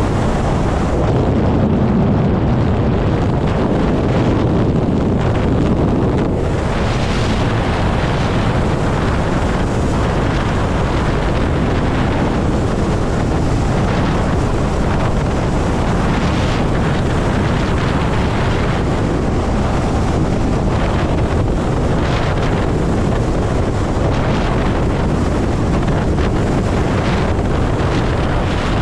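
Steady wind rush buffeting the microphone while riding a Zero electric motorcycle at highway speed.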